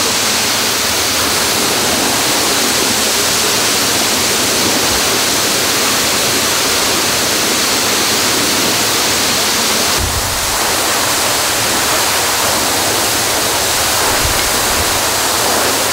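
Water gushing from a sheared-off fire hydrant in a tall geyser: a loud, steady rushing hiss of high-pressure spray falling back onto the ground and a car.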